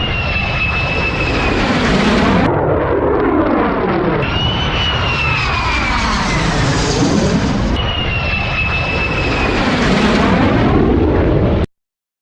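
Aeroplane flying low overhead: an engine roar with a high whine that falls in pitch as it passes. It is heard in three spliced passes, each cut off abruptly, and the sound stops suddenly shortly before the end.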